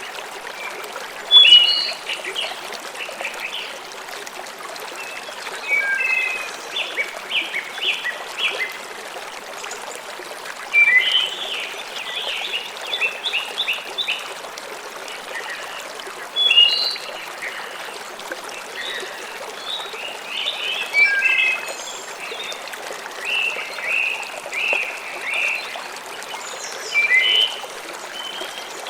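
Steady rush of running water with songbirds singing over it, in short phrases of quick chirps every few seconds.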